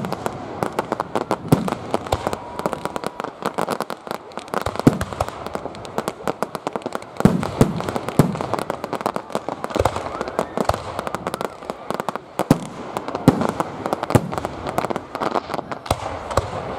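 Fireworks display: aerial shells bursting overhead, with dense crackling and many repeated bangs.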